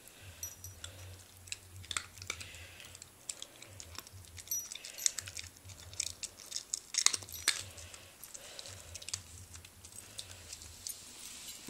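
Faint, scattered small clicks and light metallic clinking, with soft chewing: an Italian greyhound taking and eating a treat from a hand.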